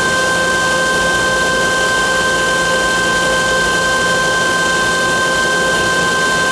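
Johnford SL650 CNC turning center running: a steady machine hum with several constant whining tones over an even hiss, unchanging throughout.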